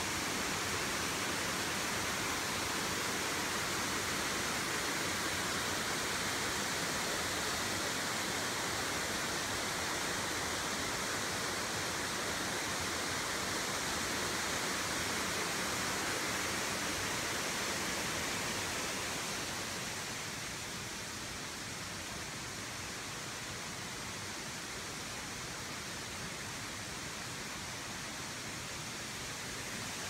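Steady rush of a rocky river tumbling over boulders in the gorge below, the Moness Burn, easing off a little about two-thirds of the way through.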